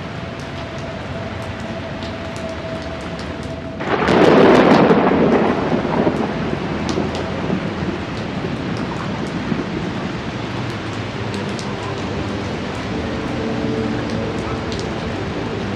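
Steady rain falling, with scattered single drops ticking close by. About four seconds in a loud clap of thunder breaks out and rumbles away over several seconds, leaving the rain.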